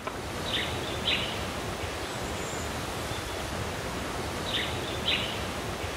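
Steady hiss of outdoor background noise, with a bird giving a short two-part call twice, about four seconds apart.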